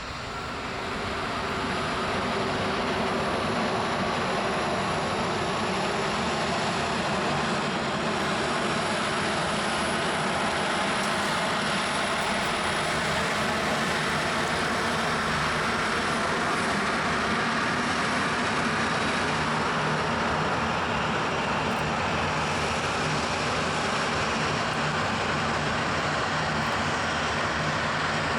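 Airliner jet engines running steadily: a constant rush with a faint steady hum, building up over the first couple of seconds and then holding level.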